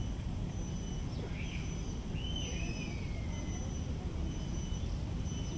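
Tropical garden ambience: birds giving a few short whistled calls, one a long downward-slurring whistle about halfway through, over a steady low rumble and a faint, evenly repeating high insect-like tone.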